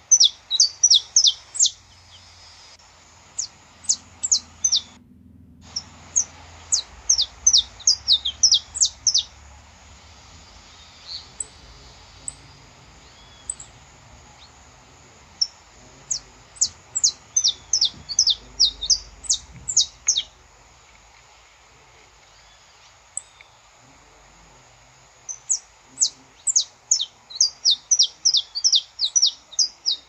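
Saffron finch (canário-da-terra) singing: rapid runs of sharp, downward-sweeping chirps, in several bursts with pauses of a few seconds between them.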